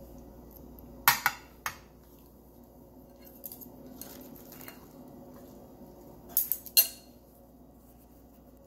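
Metal serving spoon clinking against a glass salad bowl and plate as salad is served out. There is a quick run of sharp clinks about a second in, softer scraping and handling in the middle, and another pair of clinks near the end.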